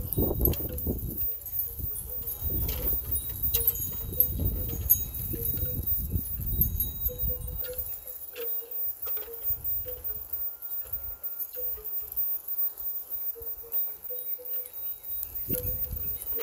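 Hands pulling apart a tomato seedling's root ball of potting soil close to the microphone: crumbling and rustling with many small crackles, over a low rumble in the first half. A short tone repeats several times through the second half.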